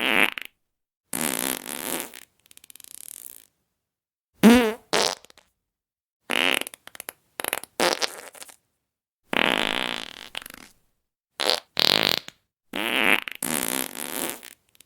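A string of fart sound effects, about a dozen one after another, separated by short gaps of dead silence. They vary from brief sharp ones to longer raspy ones about a second long, one with a wobbling pitch.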